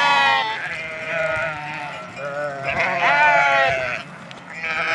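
A flock of sheep bleating, several animals calling over one another, with a loud bleat right at the start and another about three seconds in.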